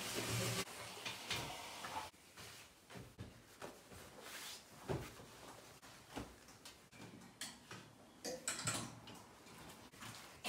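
Ironing sounds: a steam iron sliding over trousers and knocking lightly on the ironing board, with cloth rustling as one pair is lifted off and another laid out. A sharper knock about halfway through.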